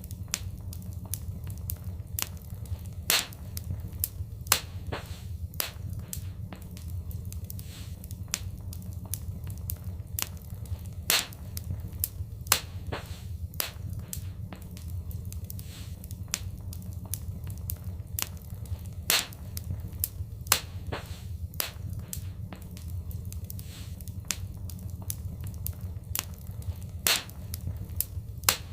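Fireplace fire crackling: irregular sharp pops and snaps, a few much louder than the rest, over a steady low rumble of the flames.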